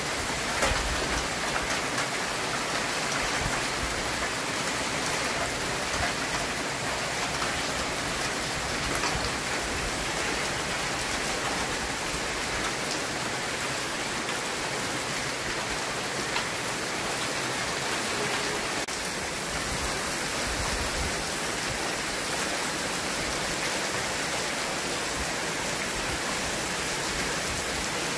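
Steady rain falling on flat concrete rooftops, an even hiss with scattered sharper drops.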